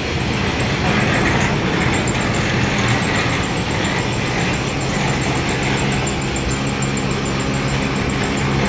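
Machinery running steadily with a low, even hum: the manure belt conveyor of a layer-hen house carrying droppings up to its discharge end.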